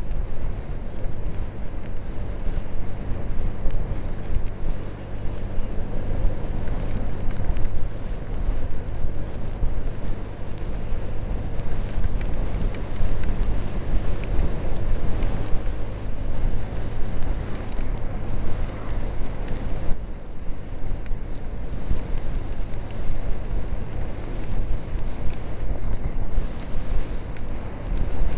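Heavy wind buffeting on a tiny camcorder microphone inside a motorcycle helmet, as a Honda PCX125 scooter rides at road speed, with a steady low rumble of the ride underneath.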